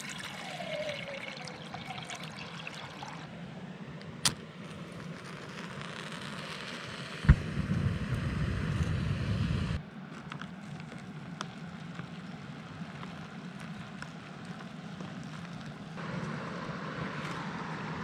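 Water poured from an insulated bottle into a Jetboil stove's cooking cup, its pitch falling over the first few seconds. About seven seconds in comes a sharp click, then the Jetboil's gas burner runs with a steady low rush for a couple of seconds and stops abruptly. Later, boiled water is poured from the Jetboil into a food pouch.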